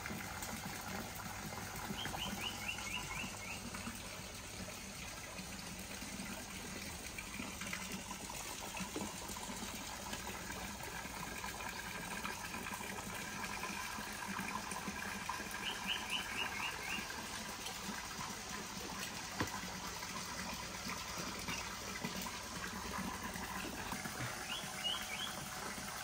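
Steady splashing trickle of water into a swimming pool, with a bird calling three times in quick runs of about half a dozen high notes.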